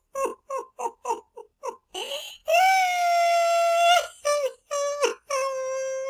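High-pitched man's voice laughing in quick short bursts, about three a second, then breaking into long drawn-out moans with a brief falling glide between them: the 'having a nut while laughing' meme sound effect.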